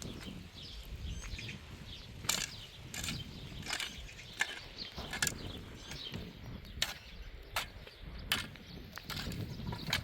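A series of sharp, irregular knocks or taps, about one a second, over a constant low rumble.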